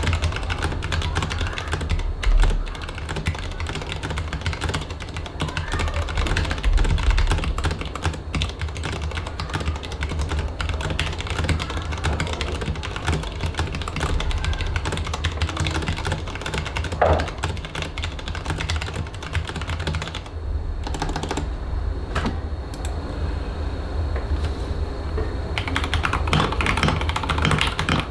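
Fast, continuous typing on a mechanical keyboard, a dense run of key clacks. The keystrokes thin out and go quieter about twenty seconds in, then pick up again for the last few seconds.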